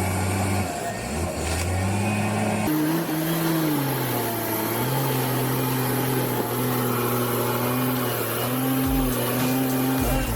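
Bulldozer diesel engine running under load, its engine speed rising and falling. The sound changes abruptly about three seconds in.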